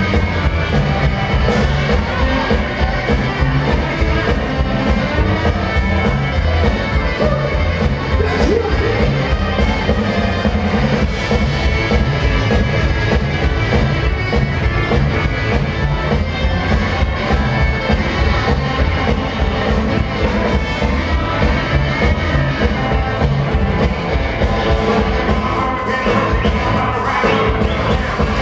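Rockabilly band playing live with upright bass, drums, electric guitar and keyboard, with a steady beat; the sound gets brighter in the treble near the end.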